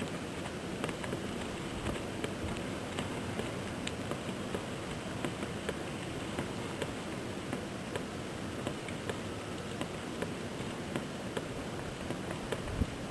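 Snowstorm outdoors: a steady hiss of falling snow with many small scattered ticks of flakes and pellets striking nearby surfaces.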